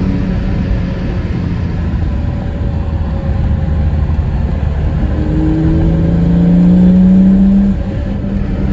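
BMW E34 M5's S38 straight-six running under load through a carbon Eventuri intake. It pulls steadily at first, then climbs in pitch and loudness through the revs for a couple of seconds before dropping suddenly near the end, as on an upshift or lift-off.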